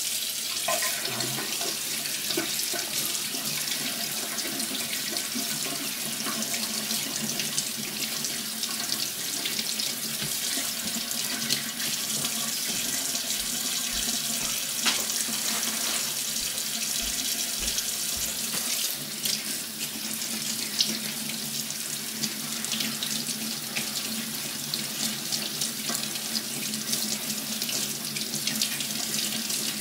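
Kitchen tap running steadily into a stainless steel sink, the stream splashing over a charred red bell pepper as it is rinsed and turned by hand.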